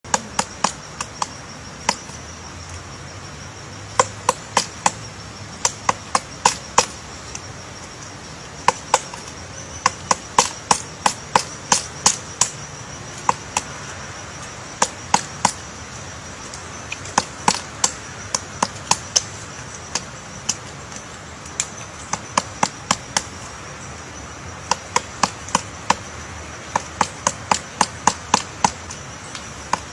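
Woodpecker pecking at wood: sharp taps a few per second, in irregular clusters with short pauses between, over a faint steady high-pitched tone.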